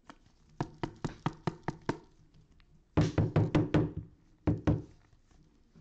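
Sharp knocks and taps of a hard plastic card holder being handled: a quick run of about seven taps, then a louder, denser clatter about three seconds in, and two more knocks a little later.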